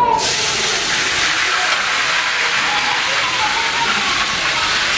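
Food going into hot oil in a frying pan on a charcoal stove, setting off a loud sizzle that starts suddenly and then keeps on steadily.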